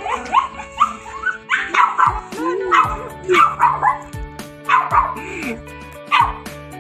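A dog barking repeatedly: a string of short, sharp, high yapping barks, one every half second to a second. Background music with a steady beat plays underneath.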